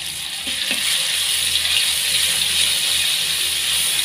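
Ground spice paste frying in hot oil in a pan, a steady loud sizzle.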